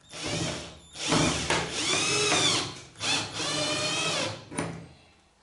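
Cordless drill-driver running in three short runs at the cat flap frame, its motor whine rising and then falling in pitch as the trigger is squeezed and eased; the longest run lasts about two seconds.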